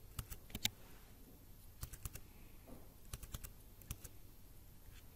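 Faint, irregular keystrokes on a computer keyboard, a dozen or so separate taps spread out with gaps between them.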